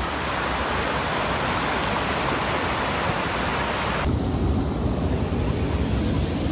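Water rushing over a concrete spillway, a steady loud hiss of churning water. About four seconds in it cuts abruptly to a duller, lower noise.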